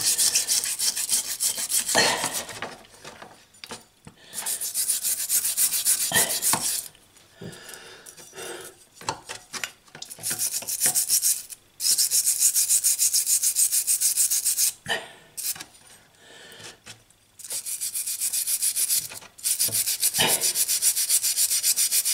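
Hand-held wire brush scrubbing a rusty adjustable wrench in a tub of liquid: bouts of rapid rasping strokes with short pauses between them.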